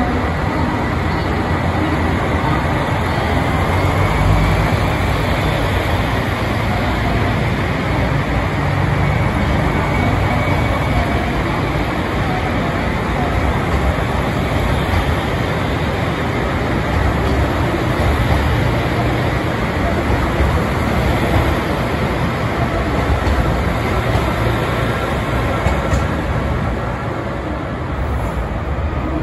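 JR Hokkaido KiHa 283 series diesel multiple unit pulling out under power, its underfloor diesel engines running loudly as the cars roll past, with wheels on the rails. The sound eases a little near the end as the last car moves away.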